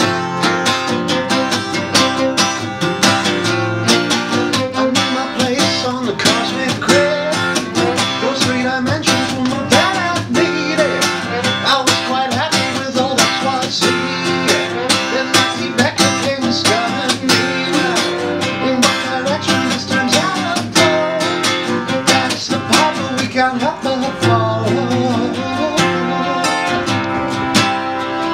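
A live acoustic band: an acoustic guitar strummed in a steady rhythm, with a violin and a man singing.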